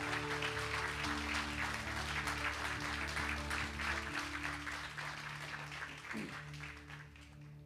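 Congregation applauding over soft, sustained background music. The clapping slowly dies away near the end, leaving the held low chords.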